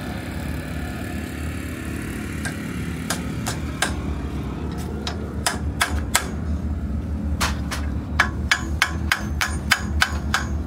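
Hammer strikes at the front wheel hub of a Toyota 4x4 with its wheel off: a few spaced blows, then a quicker run of about three a second in the second half, over a steady low hum.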